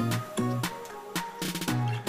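Background music with a regular beat: drum hits several times a second over a bass line.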